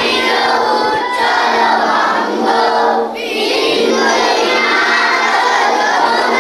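A large group of children singing loudly together in unison, with brief breaks about a second and three seconds in.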